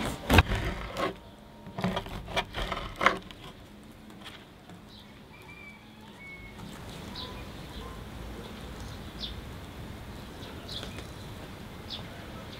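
A knife sawing through the crisp crust of a loaf on a wooden board: several crunchy strokes in the first three seconds. Then a faint steady background with a few short, high bird chirps.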